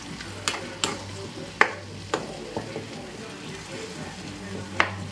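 Food sizzling in a frying pan while being stirred, with a cooking utensil knocking sharply against the pan about six times.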